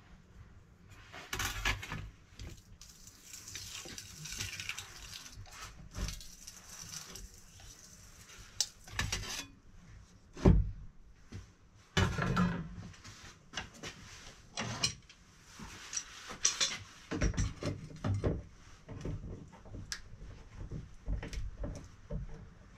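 Sheet steel being handled and worked in a bench slip roll: irregular metallic clatter, scraping and knocks, with the loudest knock about ten seconds in.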